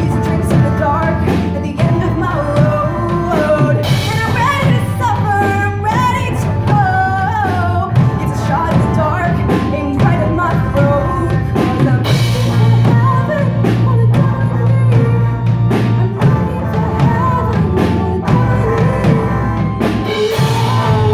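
Live rock band playing with electric guitars, bass, drum kit and keyboard, with a girl singing the melody over them.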